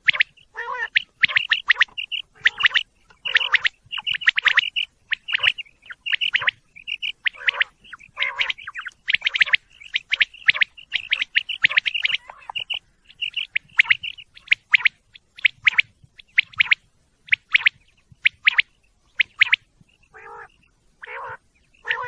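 Female common quail calling: a fast, irregular run of short, high notes, about two a second or more, some carrying lower tones under the high part.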